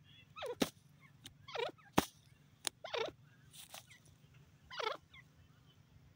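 Grey francolin giving short, wavering calls that fall in pitch, about five of them, with a few sharp clicks in between, the loudest click about two seconds in.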